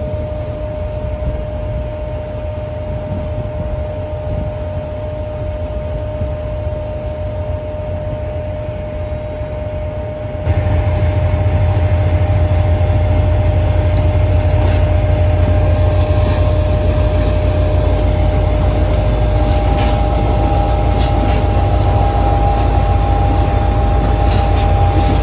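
HGMU30R diesel-electric locomotive and its passenger coaches rolling into a station platform: a steady engine and rail rumble with a constant whine. It grows suddenly louder about ten seconds in. In the later part come wheel clicks over rail joints, and a high squeal of wheels or brakes as the train slows.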